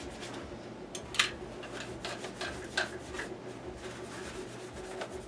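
A rag being rubbed over a surface to wipe it clean with alcohol, in irregular scratchy strokes, the sharpest about a second in.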